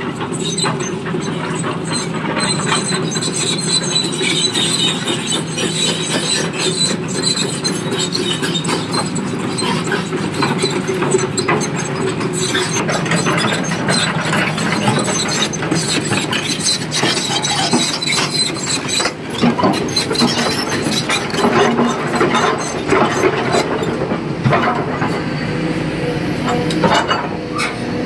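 Large tracked excavator with a heavy rock bucket working: the diesel engine and hydraulics run steadily under load, with many irregular metal clanks, knocks and squeals from the bucket, boom and tracks.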